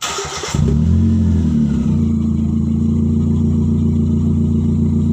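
Vehicle engine with a leaking exhaust, starting with a short noisy burst and catching about half a second in, then running at a steady loud idle.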